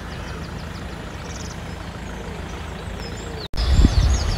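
Outdoor ambience: a steady low rumble with small birds chirping faintly. It drops out for an instant about three and a half seconds in and comes back as a louder, uneven low rumble with birds chirping.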